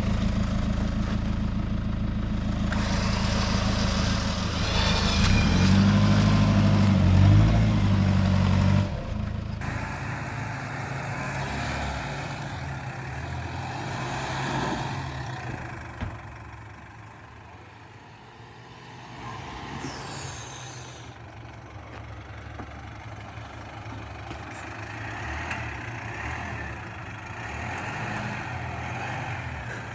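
A four-wheel-drive's engine is running under load on a rough track. It revs up to its loudest about seven seconds in, then eases off about nine seconds in to a quieter, steady run.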